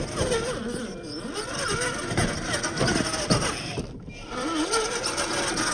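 Electric drive motor and gearbox of a 1:10 Reely Free Men RC rock crawler whining, its pitch rising and falling with the throttle. The tyres and chassis crunch and knock over rocks and gravel, with a few sharper knocks in the middle.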